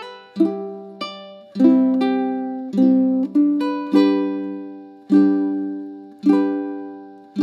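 Ukulele played slowly, alternating strummed chords with single plucked notes, each left to ring out and fade before the next.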